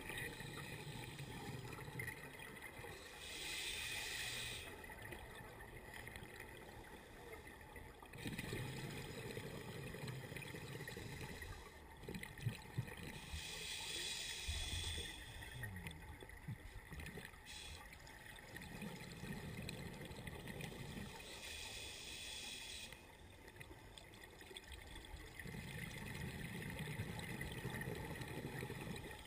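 Scuba diver breathing through a regulator underwater: slow breaths several seconds apart, each a hiss on the inhale followed by a bubbling exhale.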